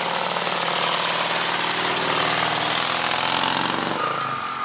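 Motorcycle engine running with a rapid, jackhammer-like chatter as the bike rides slowly away. About four seconds in the engine note drops and a steady high tone starts.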